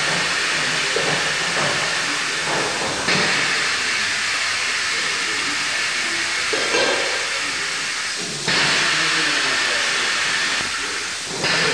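Steady hiss from the steam heating of a stirred cheese vat's jacket while the curd and whey are warmed. It jumps abruptly louder about three seconds in, again near eight and a half seconds, and once more near the end.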